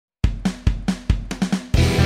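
Rock intro music: after a quarter second of silence, a drum kit plays alone, bass drum and snare hits about four a second, then fuller, louder music comes in near the end.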